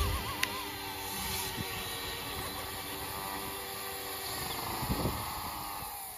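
Electric RC helicopter (YuXiang F06) idling on the ground with its rotors spinning: a steady motor whine and rotor whir. There is a thump right at the start. Near the end the pitch sags and the sound fades as the rotor slows.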